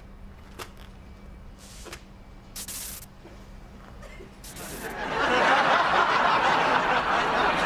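Studio audience laughter swelling up about four and a half seconds in and carrying on loudly, after a few seconds of low background with a few brief soft sounds.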